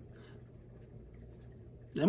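Quiet room tone: a faint steady low hum and hiss, with no distinct sound event.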